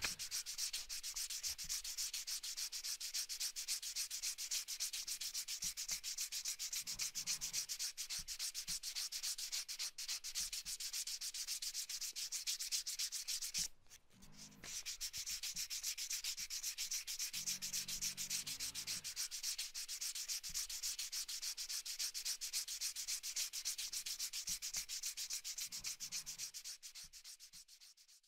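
Hand sanding of wood: quick, even rubbing strokes. There is a brief break about 14 seconds in, and the sound fades out near the end.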